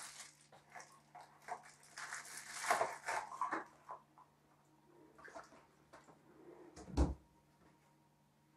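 Water poured from a pot into a steel cup, a faint trickle lasting about a second and a half, among scattered small clinks. A single sharp knock follows later.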